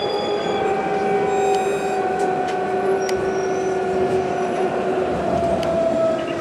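Inside a moving tram: the electric traction motors whine as two steady tones that slowly fall in pitch as the tram slows, over a dense running rumble, with a few faint clicks.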